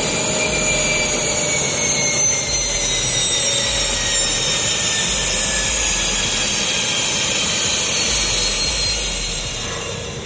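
Jet aircraft engine running: a steady roar with high whining tones that slowly fall in pitch.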